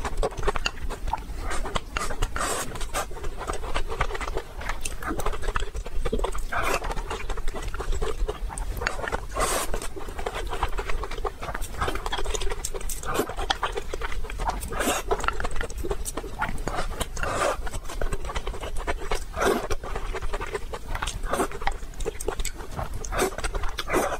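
Mukbang eating sounds: a person chewing mouthfuls of rice and saucy braised food, with many short wet smacks and mouth clicks and audible breathing between them.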